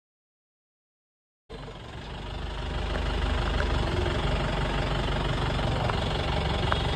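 Silence for about a second and a half, then an engine running steadily at idle, a constant rumble with hiss that swells in and holds level.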